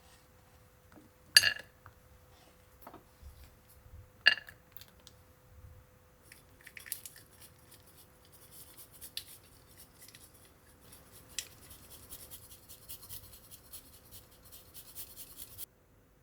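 Kitchen food-preparation sounds: two sharp, ringing clinks, then a long run of small crisp snips and crackles, over a faint steady hum.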